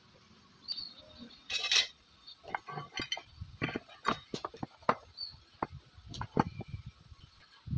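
Irregular series of light clinks and taps from hard objects, with a louder rattle about one and a half seconds in.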